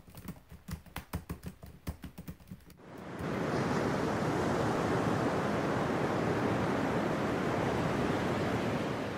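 Keyboard typing, quick clicking keystrokes for about the first three seconds, then a steady rush of ocean surf for the rest.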